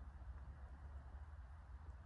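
Faint outdoor ambience: a low, uneven rumble of wind on the microphone over a quiet background hiss.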